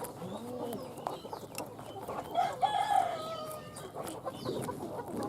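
Chickens clucking, with a rooster crowing briefly about two and a half seconds in.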